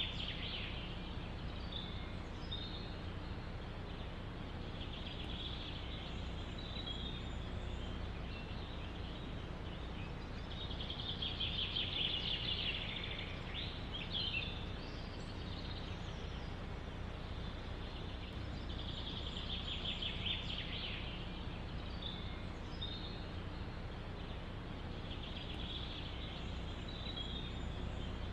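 Songbird singing in a forest: a rapid trilled phrase repeated every six to eight seconds, over a steady low rush of wind through the trees.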